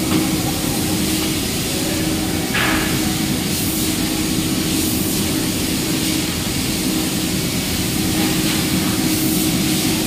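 Steady whir of UPS cabinet cooling fans with a constant electrical hum, as in a running UPS room. There is a brief sharper noise about two and a half seconds in.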